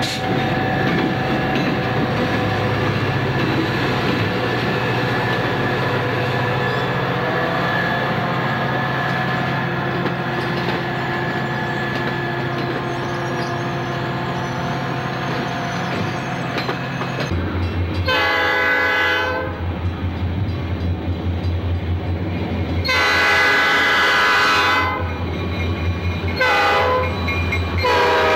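A VIA Rail F40PH diesel passenger locomotive and its coaches roll past with a steady engine drone and wheel noise. About 17 seconds in, a Grand Trunk Western freight diesel takes over, sounding its chime horn in loud blasts: long, long, short, then a fourth starting near the end, the long-long-short-long pattern of a grade-crossing signal.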